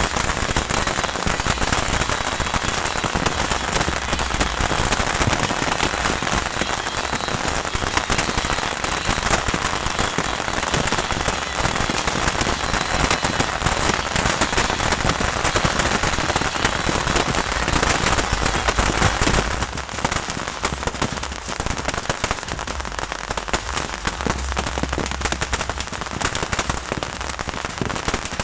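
Beehive fireworks going off in a dense, continuous crackle of rapid pops from many fireworks firing at once, easing a little about twenty seconds in.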